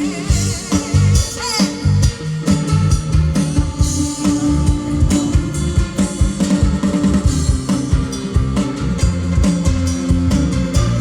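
Instrumental passage of a pop song played over a PA sound system: a drum kit keeps a steady beat under bass and guitar, with no vocal.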